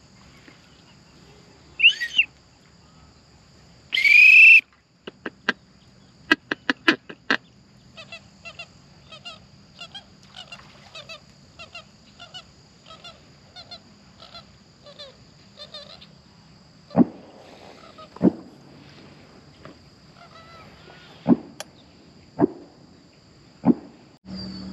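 Waterfowl honking: two loud calls about two seconds apart, then a run of quicker, fainter repeated calls. Several sharp knocks follow in the second half.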